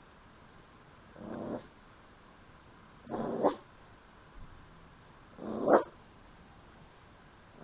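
Small long-haired dog growling at her own reflection, which she takes for another dog: three short growls about two seconds apart, each building to a short gruff woof at the end.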